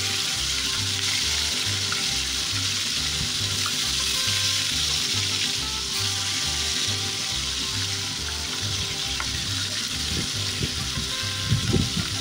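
Masala-coated, par-cooked chicken pieces sizzling steadily as they fry in hot oil in a large pot, with a few low knocks near the end.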